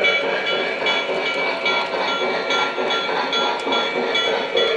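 Lionel Legacy O-scale Pennsylvania Railroad B6sb steam locomotive model running on its track: its onboard sound system plays a steady, rhythmic steam-engine sound over the rolling of the wheels on the rails.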